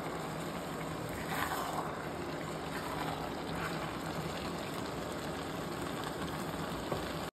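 Gajrela of grated carrots and milk bubbling and hissing in a pan over a high stove flame, a steady noise with a low hum under it, as the milk boils down.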